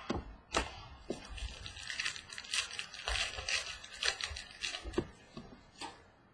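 Trading cards and their packaging being handled: irregular rustling, sliding and light clicks.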